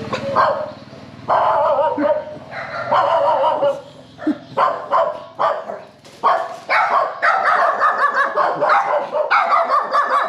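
Dog barking over and over in short, loud barks, in ragged runs at first and then a quicker, steadier string of about two to three barks a second through the second half.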